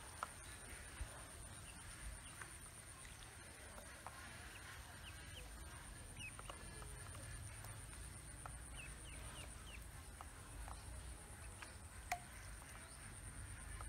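Ducklings peeping softly now and then, short high chirps spread across several seconds, over a steady high-pitched whine, with a few faint clicks.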